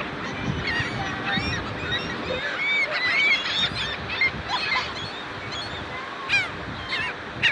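A flock of seagulls calling, many short overlapping squawks and cries, over a steady background rush.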